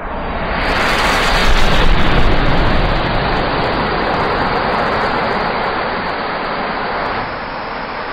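A large mass of matchsticks flaring up together in a burst of fire, a steady rushing noise that swells over the first two seconds and then holds.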